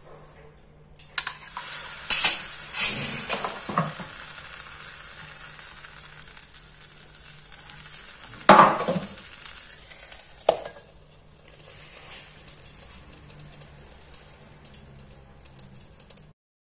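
A live charcoal ember sizzling and hissing in a small bowl set over marinating chicken, the smoking (dhungar) step that gives a smoky flavour. There are several sharper bursts of sizzling and knocks of the bowl, the loudest a little past the middle, and the hiss dies down over the last few seconds.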